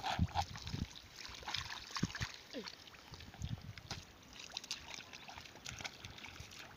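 Wet mud and shallow water squelching and splashing as the mud is dug into and churned by hand, with several dull thumps in the first second or so.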